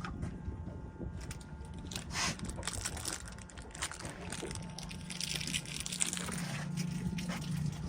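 Crackling, rustling handling noises with scattered clicks and knocks over a steady low hum.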